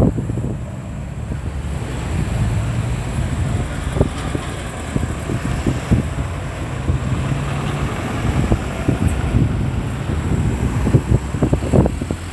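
Road traffic passing at a busy roundabout: steady vehicle engine and tyre noise, with wind buffeting the microphone in frequent short low thumps.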